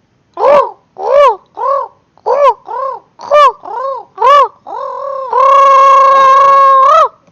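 A homemade Pokémon cry voiced by a person: a run of short squawks, each rising then falling in pitch, about two a second. It ends in one long held note of nearly two seconds that lifts at the very end.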